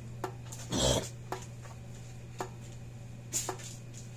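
Solid-state electric fence charger pulsing on test, a sharp click about once a second over a steady low hum. There is a louder noise just before a second in.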